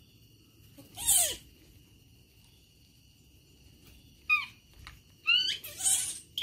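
A baby macaque's short high squeals: one about a second in, then several in quick succession near the end, some gliding upward in pitch.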